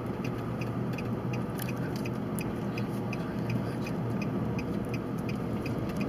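Car cabin road and engine noise, steady, with a turn-signal indicator clicking about three times a second as the car signals for a turn.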